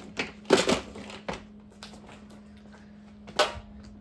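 A small screwdriver working the front screws of a plastic manual fire alarm call point, with a few clicks and knocks from the housing and tool. The loudest cluster comes about half a second in and another single knock just before the end, over a faint steady low hum.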